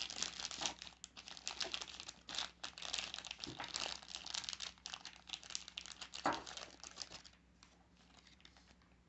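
A small clear plastic bag crinkling and crackling as a hand handles it to get a fossil out. The crinkling stops about seven seconds in.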